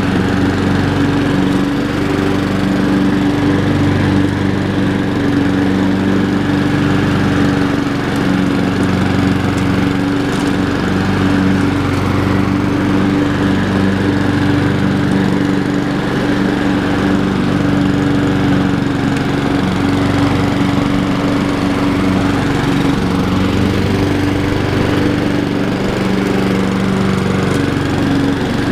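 Honda HRR216 walk-behind mower's single-cylinder four-stroke engine running steadily at cutting speed while mowing grass, its pitch holding even.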